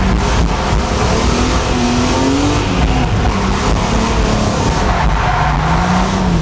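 Car engine revving up and down, heard from inside the cabin of a car being drifted.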